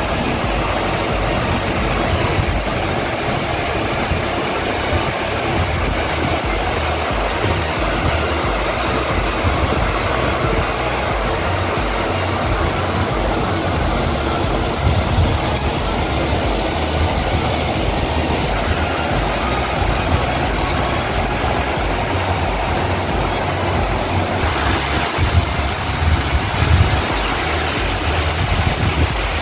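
Water rushing down a small garden cascade and pouring over a low weir: a steady rushing noise with a fluttering low rumble underneath.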